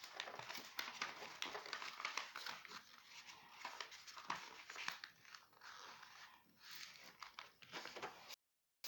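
Crinkling and rustling of material being handled close up, with many small clicks and taps. It breaks off into a moment of dead silence near the end.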